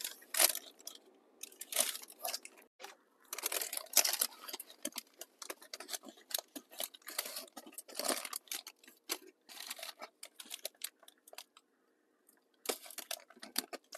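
Paper takeout bag crinkling, rustling and tearing in a series of irregular crackles as a flaky, oily patty stuck to it is pulled free, with a brief pause near the end.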